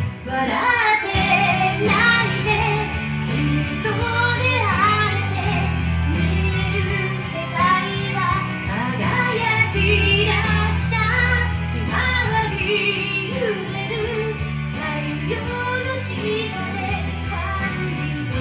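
A woman singing a Japanese pop ballad over a karaoke backing track with guitar and bass.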